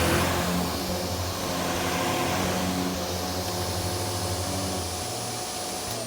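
Shark Anti Hair Wrap corded upright vacuum cleaner running in carpet mode, a steady motor and airflow noise with a thin whine. Near the end the whine falls in pitch as the motor spins down.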